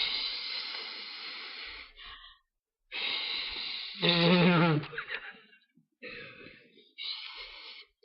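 Failed attempts at whistling: several breathy blows of air through pursed lips that give only a hiss and no clear whistle tone. A short voiced sound breaks in about four seconds in and is the loudest moment.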